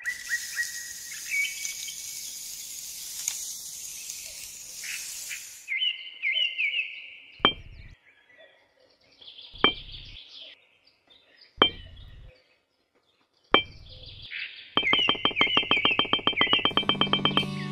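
Small birds chirping throughout. Under them, for the first five or six seconds, a thin stick scratches through sand. Then come four sharp clicks about two seconds apart as tiny clay bricks are set down, and near the end a fast, even run of clicks.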